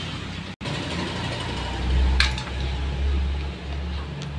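Low rumble of a motor vehicle engine running nearby, swelling and easing a few times, with one short metallic tool clink about two seconds in.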